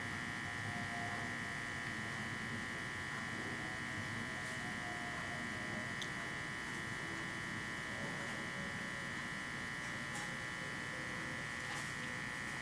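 A steady electrical buzz with a high whine that does not change, with a few faint ticks.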